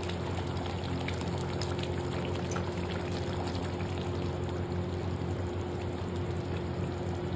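Potatoes in gravy simmering in a pan on the stove: a steady hiss over a low hum, with faint crackles.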